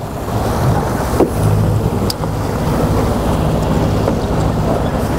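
Sailing yacht's auxiliary engine ticking over at idle, a steady low hum, under a wash of wind and water noise.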